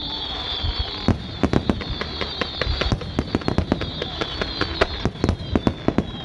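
Aerial fireworks shells bursting in quick, uneven succession: a rapid run of sharp bangs that grows thicker about a second in, over a steady high whine.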